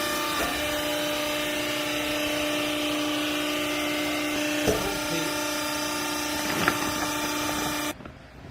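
Hydraulic clothes baler's electric motor and pump running with a steady hum and whine over a hiss, with two short knocks in the second half; the machine shuts off abruptly near the end.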